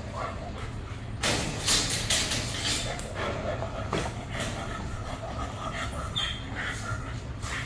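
A wire-mesh kennel gate rattles and clanks as an excited, untrained German Shepherd jumps and pulls on her leash at the kennel door. Short dog noises come through the clatter. The rattling is loudest in the first few seconds.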